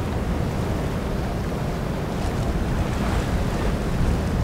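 Steady rumble of wind buffeting the microphone, mixed with the wash of water, as a large container ship passes close by.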